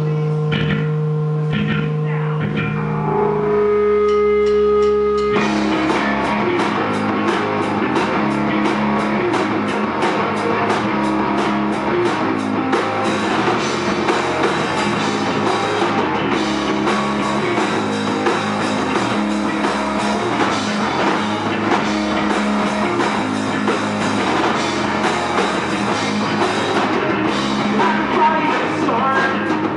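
Live rock band playing loud: held electric guitar notes ring for about the first five seconds, then drums and the full band come in with a steady beat.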